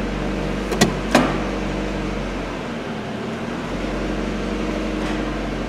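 Mazda Miata's four-cylinder engine idling steadily in first gear while the newly replaced clutch is let up to test where it engages, with two sharp clicks about a second in.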